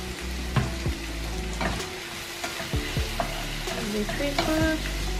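Sliced bell peppers sizzling as they sauté in a frying pan, stirred with a wooden spatula that knocks against the pan several times.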